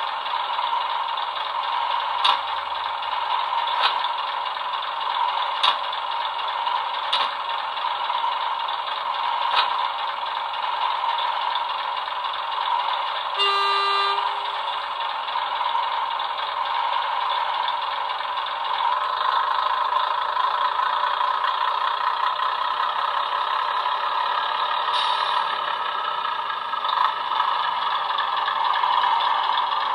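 Sound decoder in a model diesel multiple unit playing a recorded first-generation DMU diesel engine idling through a small onboard speaker, with sharp clicks every second or two at first. A single short horn blast sounds midway through, and the engine note grows louder in the later part as the unit pulls away.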